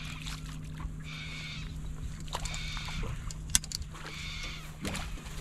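Spinning fishing reel wound in short bursts, about one every second and a half, as a hooked bream is brought up to the boat, over a steady low hum, with a sharp click about three and a half seconds in.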